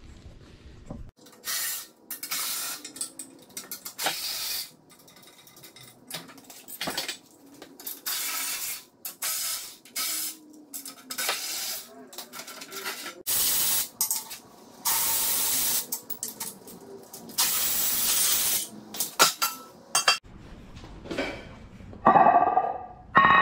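Repeated short bursts of a power tool running bolts out as a transmission and bellhousing come off an engine, with metal clinks of tools and parts in between.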